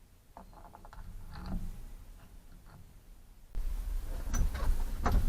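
Hand tools clicking and knocking on metal while working a steering-wheel puller. About three and a half seconds in the sound turns abruptly louder, with a low rumble under quick metallic clicks and knocks.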